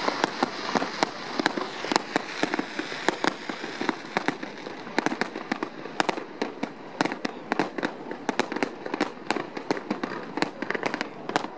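Aerial fireworks display: a rapid, irregular barrage of shells bursting in sharp bangs, several a second, over a continuous crackle.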